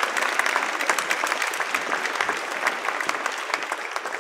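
Audience applauding steadily with many hands clapping, tapering off near the end.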